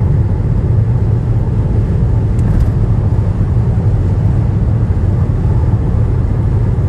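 Steady road and engine rumble of a car driving at speed.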